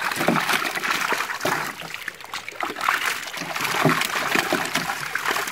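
A crowded net of small live fish flapping and splashing in shallow water, a continuous patter of water spatters.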